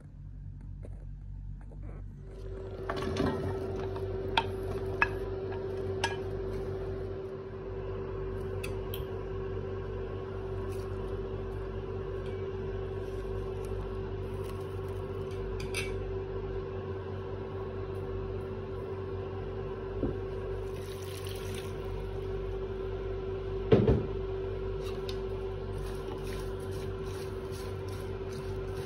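Steady electric hum from the cooktop under the pan, starting about two seconds in, with a few scattered clicks and knocks of a utensil against the pan; one knock near the end is louder than the rest.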